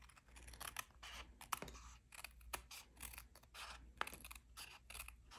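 Small paper snips cutting cardstock: a run of faint, irregular snips as the overhanging ends of paper strips are trimmed off along a card panel's edge.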